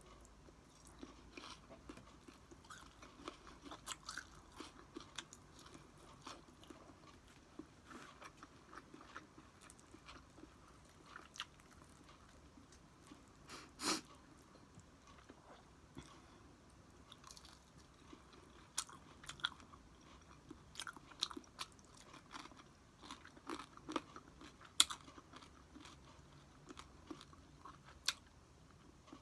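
A person chewing and eating close to the microphone: wet mouth smacks and small crunches in an irregular stream, with a few sharper clicks, the loudest about halfway through and again near the end.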